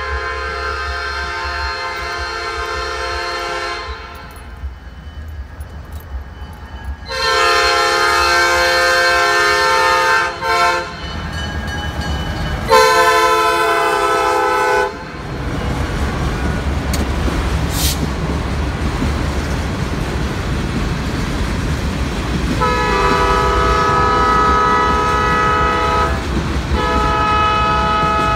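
Norfolk Southern diesel freight locomotive's multi-chime air horn sounding the grade-crossing signal, long, long, short, long, as the train reaches the crossing. The locomotive and freight cars then rumble and clatter past on the rails, and two more horn blasts sound near the end.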